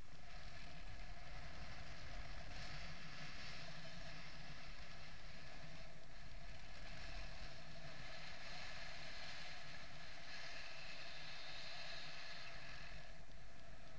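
Steady rush of airflow over the microphone of a camera carried on a paraglider in flight.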